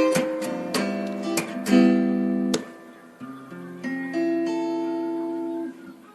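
Background music: acoustic guitar strumming chords, with several sharp strums in the first few seconds, then softer held chords that fade near the end.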